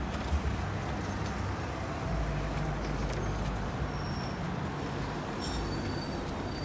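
Road traffic on a busy street: the steady rumble of passing cars and a box van, growing deeper from about two seconds in.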